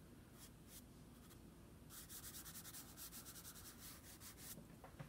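Faint rubbing of a fingertip blending soft chalk pastel into toned paper: a few light strokes, then a run of quick back-and-forth rubbing from about two seconds in that stops shortly before the end.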